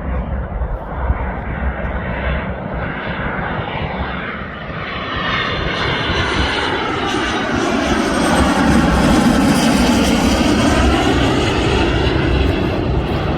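An aircraft on landing approach passing low overhead, its engine noise growing louder about halfway through and peaking near the end with a sweeping, shifting tone as it goes by.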